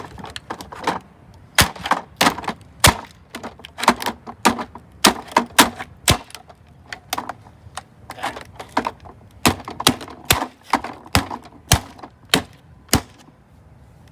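A pair of loppers striking and cracking the plastic body of a Dirt Devil vacuum cleaner: a long, irregular series of sharp blows, about two a second, with plastic cracking.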